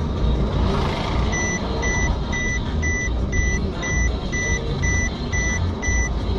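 Electronic beeping, about two short beeps a second, starting about a second in and stopping near the end, over the steady low rumble of a car being driven, heard from inside the car.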